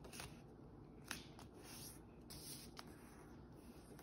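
Faint rustling of A4 printer paper being folded and creased by hand, with a few soft ticks of the paper and fingertips.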